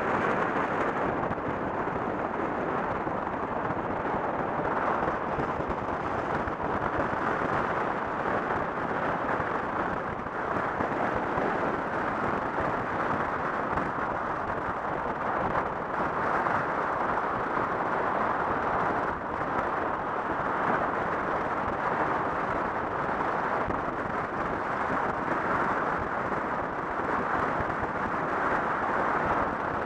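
Steady rushing road and wind noise of a moving car, tyres on asphalt with air rushing past, even and unbroken with no engine note standing out.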